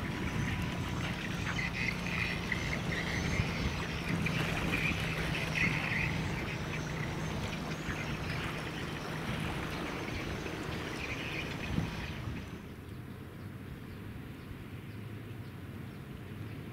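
Low steady drone of a passing container ship's engine, heard over open outdoor ambience with intermittent bird calls. About twelve seconds in the sound cuts to a quieter scene with a lower, steady hum.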